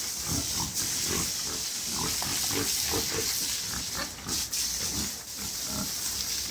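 Pigs grunting: short, low grunts in quick succession over a steady hiss.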